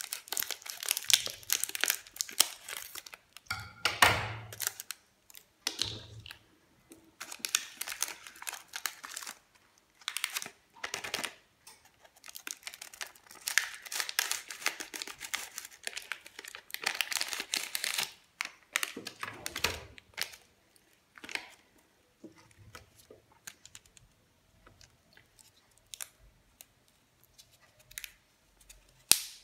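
Plastic biscuit wrapper crinkling and tearing as it is cut and pulled open by hand, in repeated bursts. Later come fewer, lighter rustles and clicks, with one sharp click near the end.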